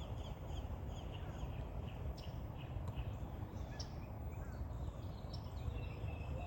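Small birds chirping: a run of short, high, repeated notes, about two to three a second, with a few higher calls mixed in, over a steady low rumble.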